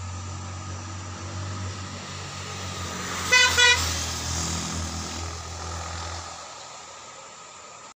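A motor vehicle's low engine drone swells and fades away, and its horn gives two short toots about three seconds in.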